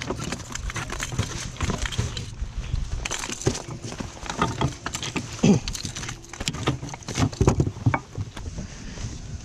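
A striped bass flopping in a landing net on a boat deck: irregular thumps and knocks, with the net and its frame rattling as it is handled.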